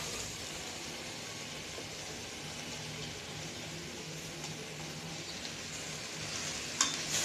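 Vegetables sizzling softly in a steel pressure cooker as rice is tipped in from a steel bowl, a steady low hiss. Two sharp metallic clicks near the end as a steel spoon knocks against the metal.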